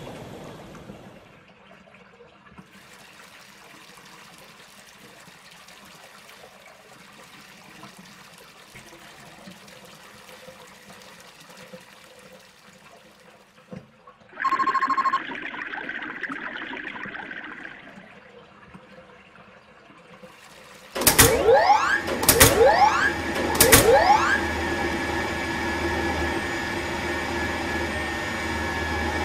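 Water rushing through a pipe: a faint steady flow at first, a louder burst about halfway, then three loud rising whooshes that settle into a steady rush.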